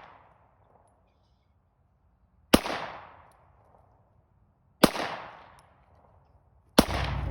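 AR pistol firing three single shots about two seconds apart, each shot echoing away over a second or so.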